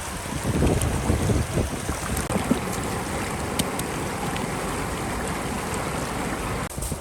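Wind buffeting the microphone: a steady rushing noise with gusty low rumbles and a few faint clicks, dropping off just before the end.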